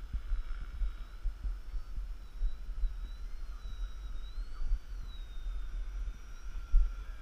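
Wind buffeting the microphone as a low, gusty rumble, with the faint high whine of a small RC delta-wing plane's motor and propeller overhead, rising and falling in pitch as it flies.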